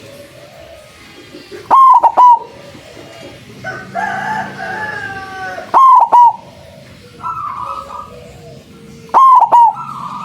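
Zebra dove (perkutut) cooing: three loud phrases of a few quick, clipped notes each, coming about every three to four seconds, the kind of loud song used as a lure to call in other zebra doves. Between the first two phrases another bird gives a longer, falling call.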